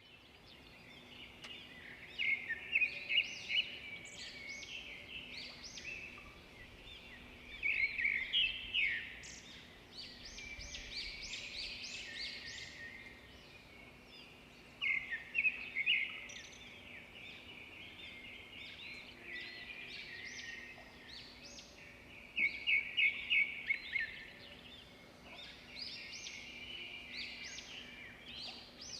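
Chorus of songbirds chirping and singing, with bursts of quick repeated high notes every several seconds.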